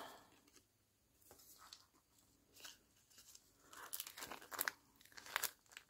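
Cellophane bag crinkling faintly as it is handled, in scattered short rustles that are busiest in the second half.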